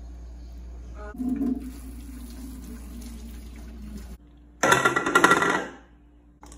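Cooking water poured off a pot of instant noodles into a stainless steel sink. Later comes a loud, brief clattering ring as a dish is set down on a wooden table.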